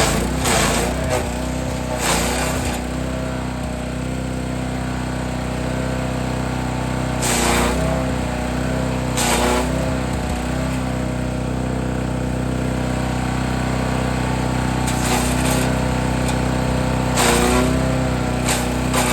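Forest Master FM8DD wood chipper's engine running steadily, with short bursts of branches being chipped every few seconds. The engine note sags briefly as each piece goes in.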